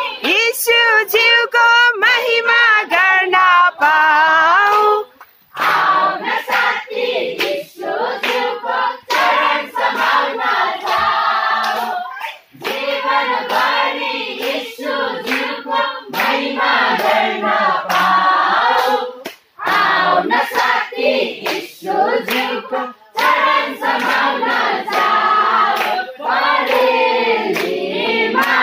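A congregation singing a worship song together, with steady rhythmic hand clapping throughout.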